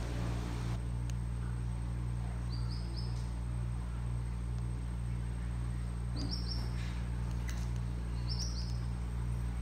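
Steady low mechanical hum, with a short high chirping call repeated three times over it, each a quick upward run of notes.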